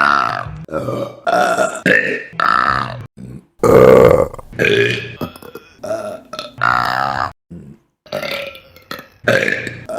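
A string of women's burps, about a dozen in quick succession, each about half a second long and some drawn out with a wavering pitch; the loudest comes about four seconds in.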